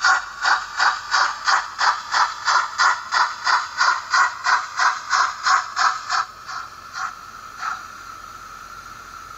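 Trix BR56 model steam locomotive's digital sound decoder playing exhaust chuffs, about three a second, through its small speaker. The chuffs slow and stop at about seven to eight seconds in, leaving a steady hiss.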